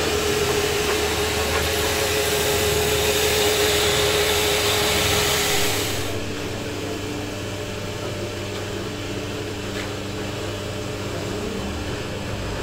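Workshop machinery running: a loud, steady machine noise with a steady whine drops away about six seconds in, leaving a quieter, steady motor hum.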